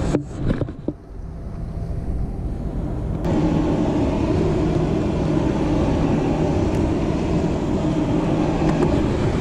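Steady low mechanical rumble with a faint hum. It drops away briefly after a couple of handling knocks at the start, then comes back suddenly about three seconds in.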